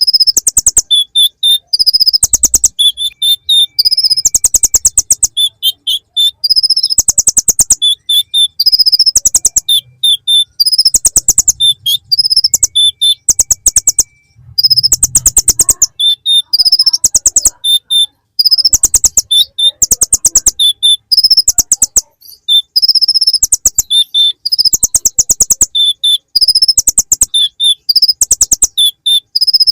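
Purple-throated sunbird (kolibri ninja) singing loudly, its song filled with bar-winged prinia (ciblek) phrases: rapid buzzy trills of evenly spaced notes, each a second or two long, alternating with short high chirps, over and over.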